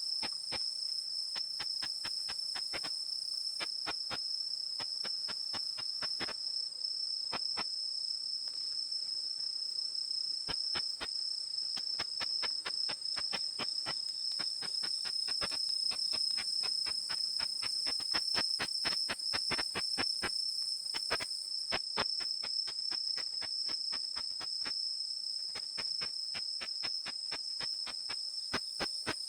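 Ultrasonic song of a Tettigoniopsis ikezakii katydid (Unzen sasakirimodoki), converted to audible sound by a bat detector. It comes through as a long run of sharp ticks at an uneven pace, several a second and sometimes in quick clusters, over a steady high tone.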